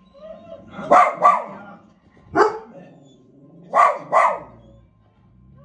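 Dog barking at the television: five sharp barks, a quick pair about a second in, a single bark, then another quick pair.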